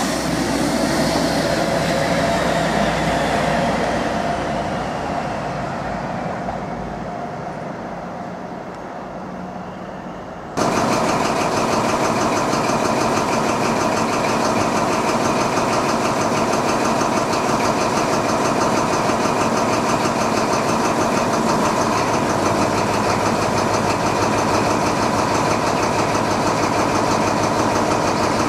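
HST power car's Paxman VP185 V12 diesel engine passing and pulling away, fading, with a whine that falls in pitch. About ten seconds in, an abrupt cut to another power car's Paxman VP185 engine idling steadily at a standstill.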